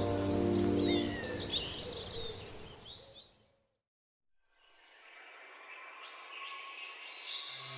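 Background music with birdsong chirping over it, fading out to dead silence about three seconds in. After about five seconds birdsong and a faint hiss fade back in.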